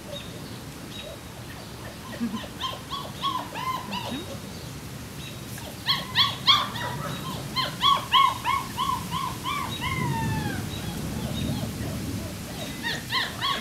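A puppy yipping: a few short high yips, then a quick run of about ten at roughly three a second, the last sliding down in pitch.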